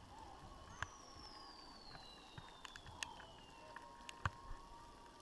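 Fireworks going off in the distance: scattered faint pops and cracks, with a sharper bang about four seconds in. A thin whistle falls steadily in pitch for about three seconds from near the start.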